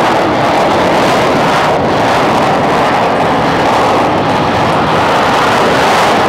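Loud, steady jet noise from military jet aircraft at an air show: an even rush with no distinct tones.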